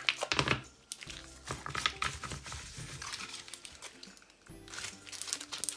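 Plastic ice-cube bags of frozen red currant juice crinkling and crackling as they are handled, in short bursts near the start and again near the end, over quiet background music.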